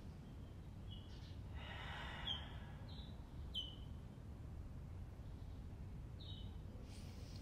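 Slow ujjayi breathing: one soft hiss of breath through a narrowed throat about two seconds in. Several short, high, falling bird chirps are scattered through it, over a low steady rumble.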